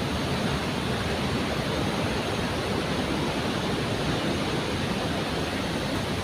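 Steady rushing of falling water from a waterfall, an even, unbroken roar.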